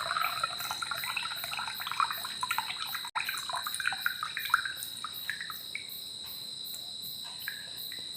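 Hot herbal decoction trickling and dripping through a strainer, the pouring thinning out to scattered drips by the end. Crickets chirp steadily in the background.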